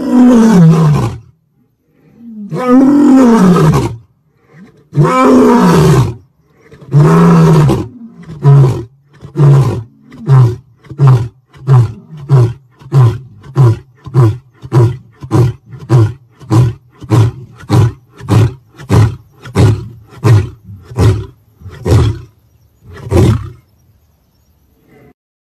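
Lion roaring: four long, deep roars that fall in pitch, then about two dozen short grunts in quick succession, nearly two a second. This is the typical pattern of a lion's roaring bout.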